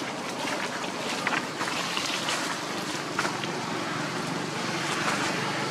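Steady outdoor background noise with a few short crackles or clicks scattered through it.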